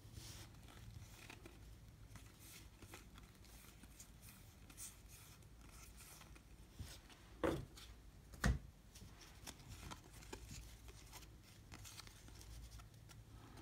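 A stack of baseball trading cards being flipped through in the hand: faint card-on-card sliding and flicking, with two louder knocks about a second apart a little past halfway.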